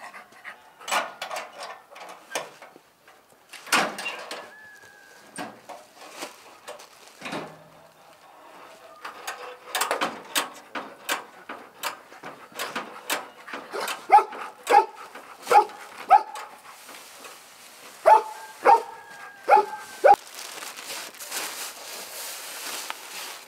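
A dog barking: a run of four barks at an even pace past the middle, then another quick run of barks a couple of seconds later, among scattered clicks and knocks.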